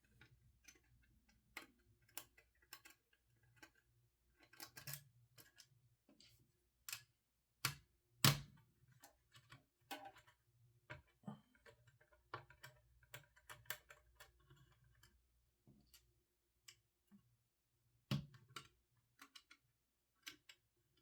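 Faint, irregular clicks and taps of a small hand tool and screws against the metal of a GTX 980 Ti graphics card as it is taken apart. A sharper knock comes about eight seconds in and another near the end.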